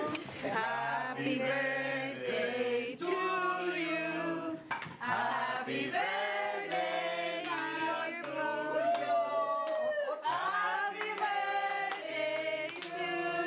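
A small group of people singing a birthday song together, with some hand clapping.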